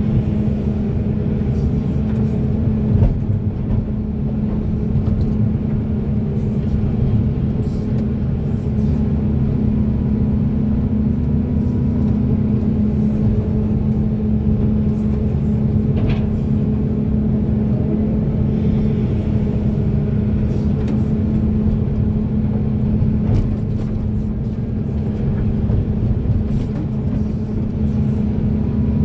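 Large hydraulic excavator's diesel engine running steadily with a deep, even hum, with a few brief knocks here and there.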